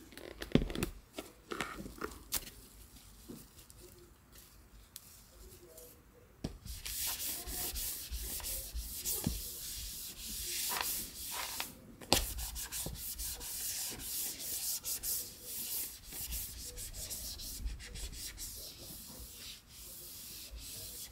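Disinfecting wipe pulled from its plastic canister with a few light clicks. From about six seconds in, a wipe rubs back and forth across a tabletop in continuous quick strokes, with a short pause partway through.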